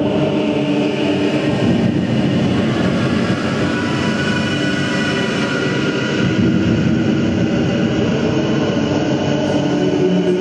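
Live harsh noise music: a loud, unbroken wall of distorted electronic drone from effects pedals, with several held tones buried in the noise.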